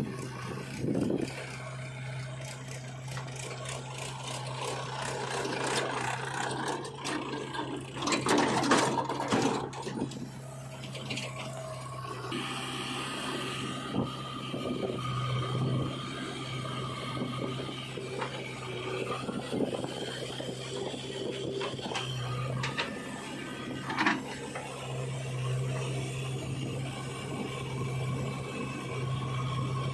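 Diesel engine of a heavy machine running steadily, with irregular metal scraping and rattling over it. The scraping is loudest about eight to ten seconds in, and there is a sharp knock near the end.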